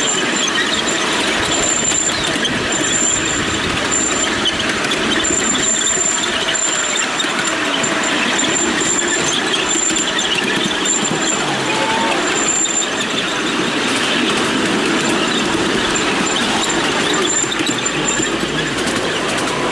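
Miniature railway train running along the track, a steady rumble of its wheels on the rails with a faint high whine that comes and goes.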